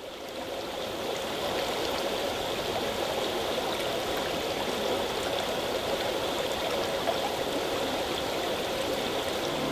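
A stream or river running: a steady rush of water that fades in over the first second or so.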